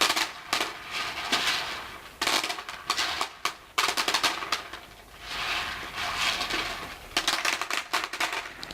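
Pretend hail: small hard pellets dropped by the handful onto a hard surface, a dense clatter of quick ticks coming in several bursts, with softer hissing pours between them.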